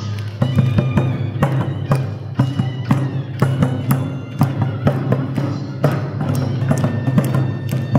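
Korean buk barrel drum struck with sticks in a run of sharp, uneven beats, over traditional Korean music for the Jindo drum dance.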